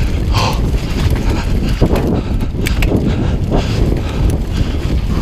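Mountain bike descending a rough dirt trail at race speed: a heavy wind rumble on the microphone, with tyre noise and the irregular rattle and knocks of the bike over bumps.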